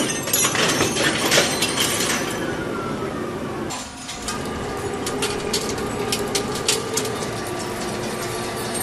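Machining equipment running, with a steady hum and many sharp metallic clicks and clinks. A tone glides down a little over two seconds in, and the sound changes abruptly near four seconds in, after which steady tones run under the clicking.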